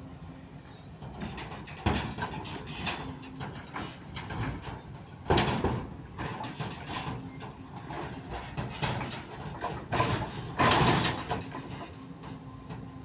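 Kobelco SK130 hydraulic excavator running, with loud knocks and scraping as its grapple works. The loudest knocks come about five seconds in and again near eleven seconds.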